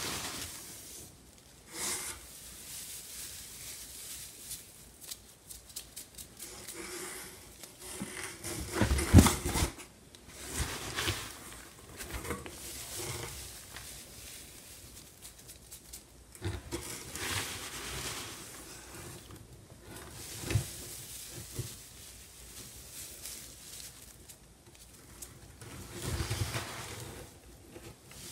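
Dry shredded-paper bedding rustling as a gloved hand scoops it from a box and scatters it over a worm bin, in irregular handfuls, the loudest about nine seconds in.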